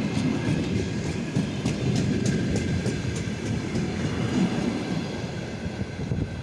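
DS3 electric multiple unit rolling past close by as it pulls away, with a low rumble and a steady high whine. Its wheels click over rail joints in the first half, and the last car goes by near the end.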